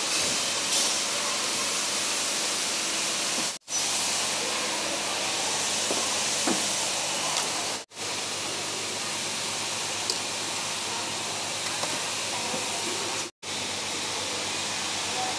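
Steady, even hiss of background noise, cut off abruptly for a moment three times.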